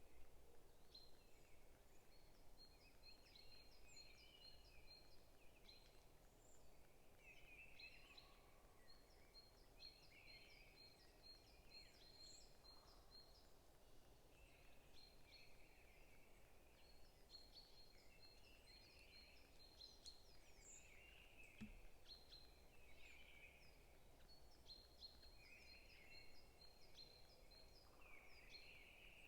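Forest songbirds singing and calling: short trills of rapid high notes that come back every few seconds, mixed with lower chirps, over a faint steady background hiss.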